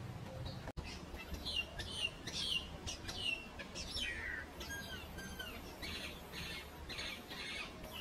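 Common myna singing: a run of short whistled notes that slide down in pitch, mixed with harsh rasping notes, starting about a second in.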